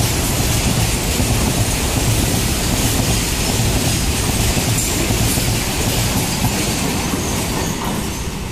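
Freight train of covered goods wagons rolling past close by, wheels clattering steadily over the rail joints. The sound eases a little near the end.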